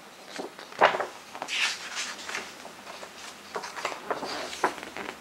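Paper and cardboard of a box set's printed inserts being handled: rustling and shuffling with several sharp taps and clicks, the loudest a knock about a second in.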